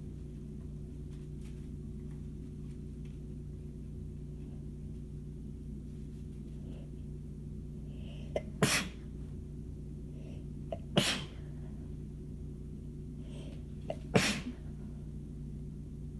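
A person sneezing three times in a rough sneezing fit, each sneeze preceded by a short sharp catch of breath. The sneezes come about two to three seconds apart, over a steady low hum.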